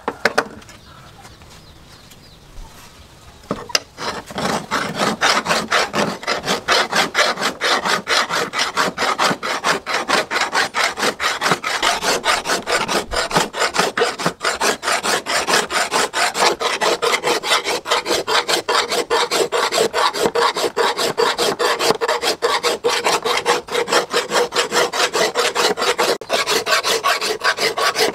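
Hand file rasping along the edge of a steel axe head forged from a car axle, in quick, regular back-and-forth strokes that begin about four seconds in, after a short quiet spell: the blade's bevel being filed sharp.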